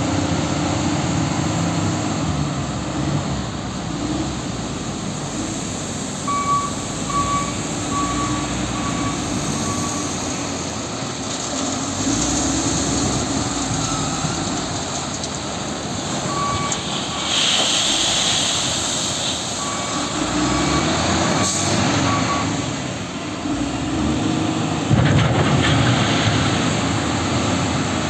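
LiuGong wheel loader's diesel engine running and rising and falling in revs as it scoops, lifts and dumps a load into a truck. Its reversing alarm beeps in spells: a run of even beeps about a quarter of the way in, and shorter runs after the middle.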